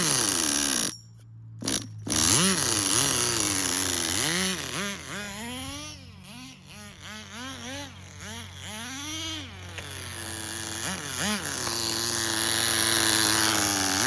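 Small nitro engine of a Tamiya TGS-R RC car, blipped on the throttle so its revs rise and fall again and again, then held at a steadier, slowly climbing high idle. It is struggling to hold an idle while its low-speed needle is being leaned out.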